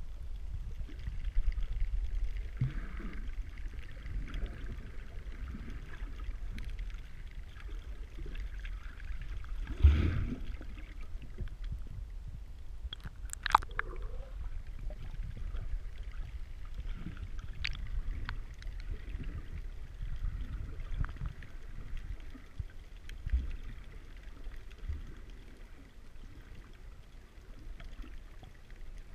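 Muffled underwater sound picked up by a submerged camera while snorkeling: a steady low rumble of moving water, with a sharp knock about ten seconds in, a short gurgle of bubbles a few seconds later, and a few faint ticks.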